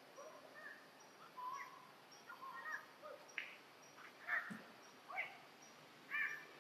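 Baby macaques giving a string of short, high squeaky calls while they play in the branches, the loudest about four seconds in and again near the end.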